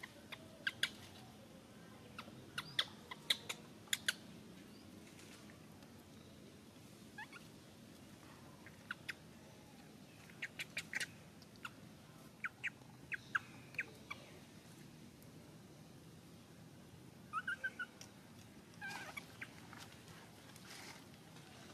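Scattered short, high chirps and clicks, singly or in quick clusters, over a faint steady hiss, with one brief squeaky call about seventeen seconds in.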